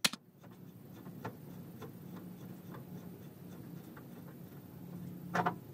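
Hand rivnut gun being squeezed and worked to set 6-32 threaded rivnuts in a steel tailgate: faint, irregular metallic ticks and clicks over a low steady hum, with a short, louder creak near the end.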